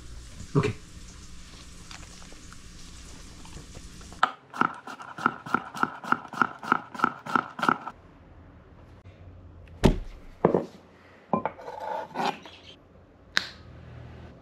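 A chef's knife chopping quickly on an end-grain wooden cutting board, about four strokes a second for some three and a half seconds, then a few scattered knocks of the knife on the board.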